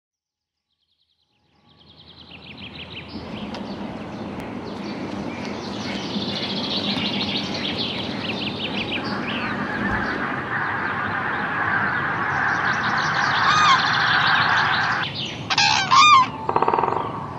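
A large flock of waterbirds calling together. The calls fade in from silence about two seconds in and become a dense, busy chorus. A few louder, separate calls stand out near the end.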